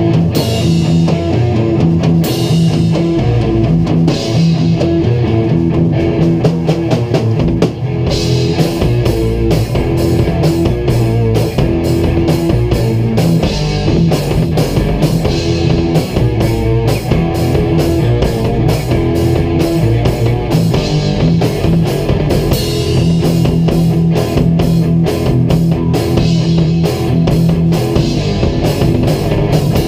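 Live rock jam on electric guitars and a drum kit, played loud together. At first a cymbal crashes about every two seconds over held guitar chords, then from about eight seconds in the drums settle into a steady, driving beat with fast cymbal strokes.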